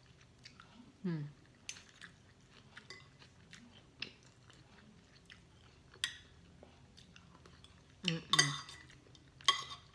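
Metal spoon and fork clinking and scraping against a ceramic plate while eating, in scattered single clicks with a louder cluster about eight seconds in and again near the end. Chewing sounds and a brief low 'mm' about a second in come between the clinks.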